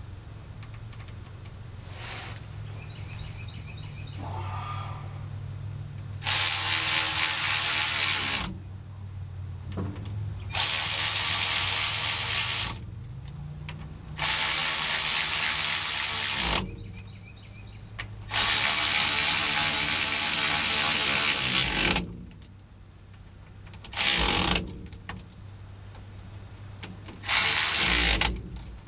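Power tool running in six separate bursts, most about two to three seconds long and the last two short, driving in the U-joint bolts at the driveshaft's yoke on the rear axle.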